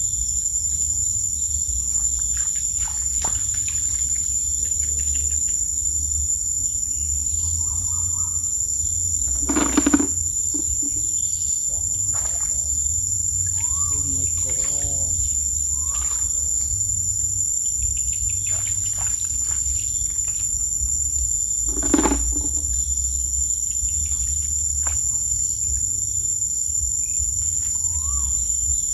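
Steady, high-pitched chorus of crickets or other insects over a constant low rumble, with a few short chirps. Two louder thumps stand out, about 10 and 22 seconds in.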